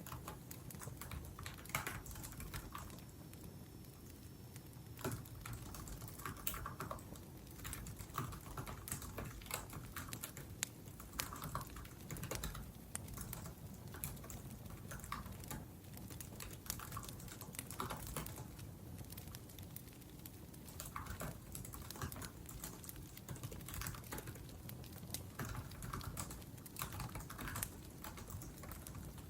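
Typing on a laptop keyboard: fast, irregular key clicks in short runs with brief pauses. A wood fire crackles softly underneath.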